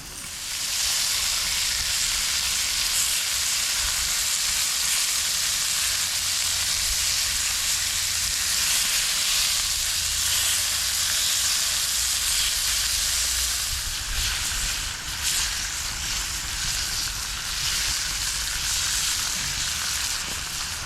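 Food frying in a very hot pan over a campfire: a loud, steady sizzle that starts abruptly about half a second in and eases slightly past the middle.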